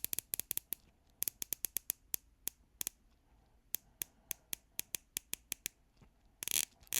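Dive-watch bezel on a San Martin Black Bay 58 homage being turned click by click, a crisp, solid click at each detent, in uneven runs a few tenths of a second apart, with a quick burst of clicks near the end as it is spun faster.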